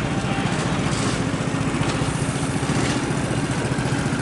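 Go-kart engine running steadily at an even pitch as the kart drives round the track.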